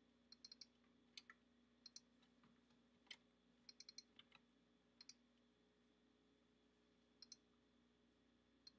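Faint computer keyboard and mouse clicks, a few keystrokes at a time in small clusters separated by pauses, as CSS code is edited and the preview tab is clicked open.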